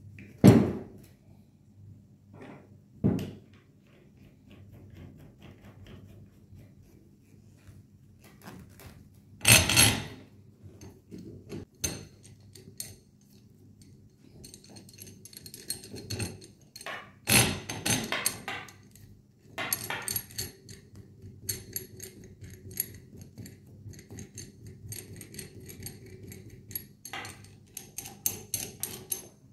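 Steel hex nuts and a threaded tie rod being handled against the metal stretcher plates and flanges: metal clinking with a few louder knocks. In the second half comes a quick run of small metallic clicks and ringing as the nuts are worked onto the rod.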